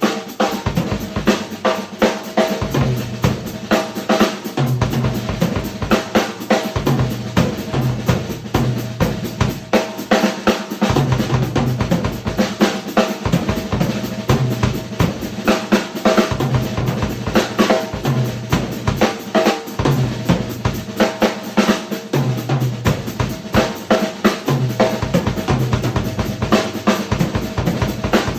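Yamaha Recording Custom drum kit played in a continuous improvised groove: rapid, dense snare and bass drum strokes with cymbal wash over them.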